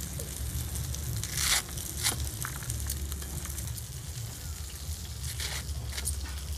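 Spinach stalks being cut against a large curved blade over a bamboo tray: a few short, crisp cuts, the loudest about a second and a half in, over a steady low rumble.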